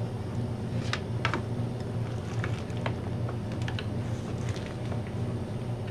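Rebuilt brake master cylinder being bench-bled by hand: the back of a plastic screwdriver pushes its piston in and out, making a string of irregular light clicks and taps. A steady low hum runs underneath.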